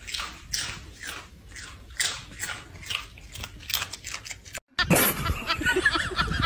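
A dachshund crunching and chewing a dry snack from a bag, short crunches about twice a second. Near the end a louder, different sound with a wavering pitch starts.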